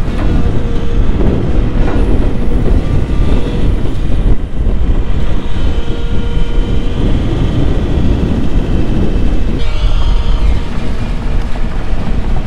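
Volvo EC140B 14-ton tracked excavator's diesel engine running under load and its hydraulics working as the dredging bucket scoops sediment out of a dyke and swings up. There is a steady loud rumble, with wind buffeting the microphone.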